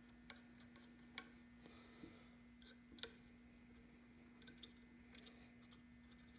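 Near silence: a few faint light clicks and scrapes as a cotton swab spreads gun lube inside the empty action of a Savage 93R17 rifle, over a steady low hum.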